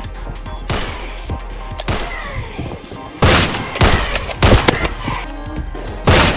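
Background music with sharp gunshot-like bangs: a few scattered ones at first, then a loud, rapid cluster from about three seconds in.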